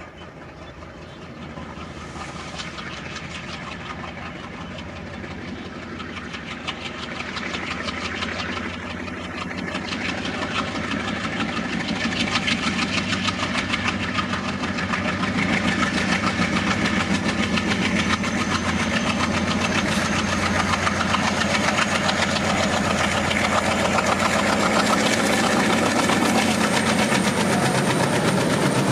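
Two ALCO WDM3A diesel-electric locomotives working hard under load, their 16-cylinder engines chugging with a fast, rough pulse that grows steadily louder as they approach. In the last third a thin high whine rises slowly in pitch, typical of the turbochargers spooling up.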